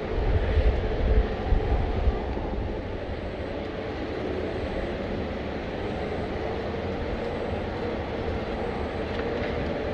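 Steady jet airliner engine noise across the airfield, with a heavier low rumble in the first two seconds or so that then settles.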